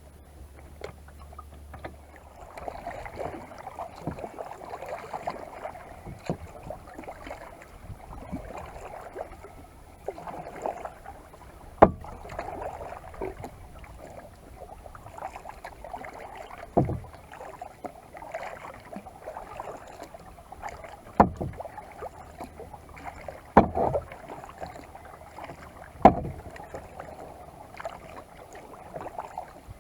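Kayak paddling on a lake: the paddle dipping and swishing through the water stroke after stroke, with a few sharp knocks scattered through, about five in all.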